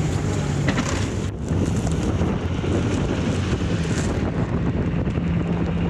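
Blizzard wind buffeting the microphone: a loud, steady rumbling roar.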